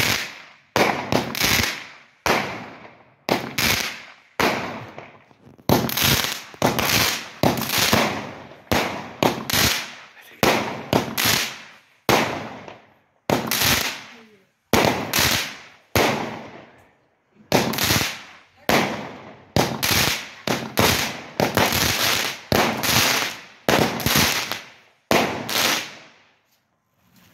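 Fireworks going off: a long series of sharp bangs, roughly one a second, each with a trailing echo, stopping just before the end.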